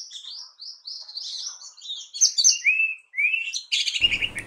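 Songbird chirping: a fast run of short, high chirps, with a few lower notes sliding upward about two and a half seconds in.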